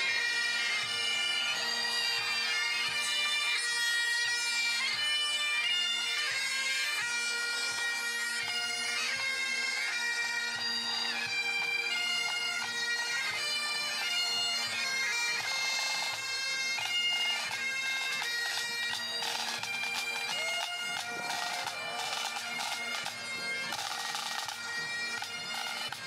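Great Highland bagpipes of a marching pipe band playing a tune over their steady drone, with snare drum strokes coming through more strongly in the second half.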